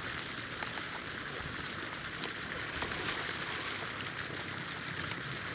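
Lagoon water splashing around swimmers: a steady hissing wash with a few small sharp splashes.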